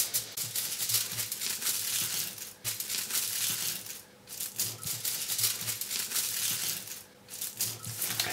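Kitchen aluminium foil crinkling and crackling as it is rolled up tightly by hand around a bundle of matches, with three short pauses.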